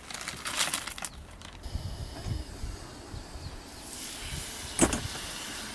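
Rustling and scraping of gear being handled, with a single sharp click near the end.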